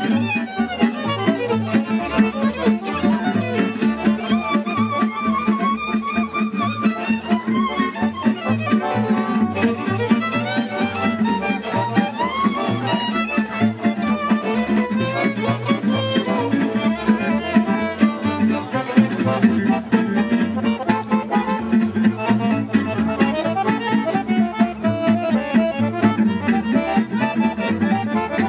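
Gypsy swing band playing an upbeat tune: a violin carries fast melodic runs over acoustic guitar rhythm and plucked double bass.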